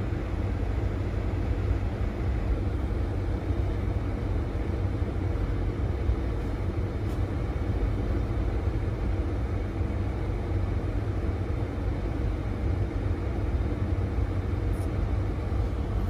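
Steady low rumble of a car heard from inside its cabin, with no sudden sounds.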